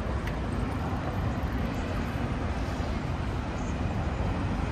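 Outdoor city street ambience: a steady low rumble with no clear voices.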